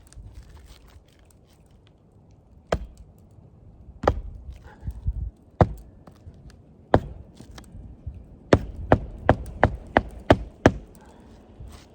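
Hammer driving roofing nails into an asphalt shingle on a roof deck: a few single strikes, then a quick run of about seven blows.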